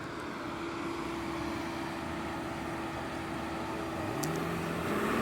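Car engines running with a steady hum. Near the end, one engine revs up, its pitch rising and then holding as it gets louder.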